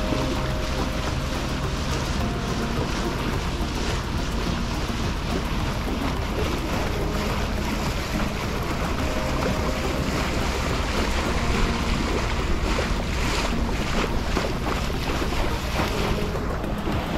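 Wind buffeting the microphone and water rushing and slapping past the hull of a moving Hunter Passage 42 sailboat, with a steady low hum underneath and a few louder gusts past the middle.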